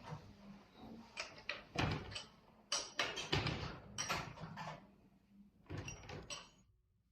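A wrench and metal fittings being handled while a pressure gauge is tightened onto a grouting machine: irregular clicks, clinks and knocks, stopping shortly before the end.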